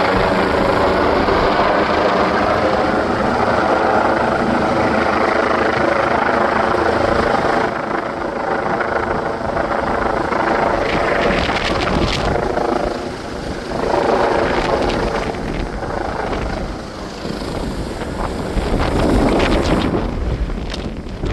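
Helicopter rotor and engine running close by, loud and steady for the first seven seconds or so, then dropping off and rising and falling in strength as the aircraft moves off, swelling again near the end.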